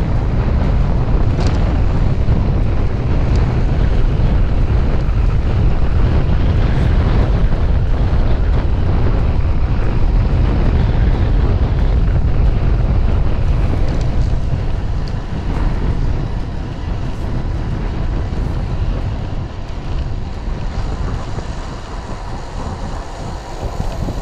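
Wind buffeting the microphone of a camera on a moving road bicycle, a loud steady low rumble that eases somewhat in the second half.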